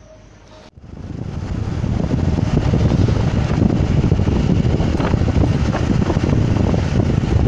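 Royal Enfield Himalayan motorcycle riding at highway speed: loud wind rush buffeting the rider's microphone over the bike's running. It comes in suddenly less than a second in, builds over the next second or so, then holds steady.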